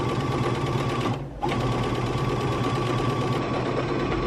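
Brother NS10 electric sewing machine running at a steady speed, stitching fabric; it stops for a moment just over a second in, then runs on.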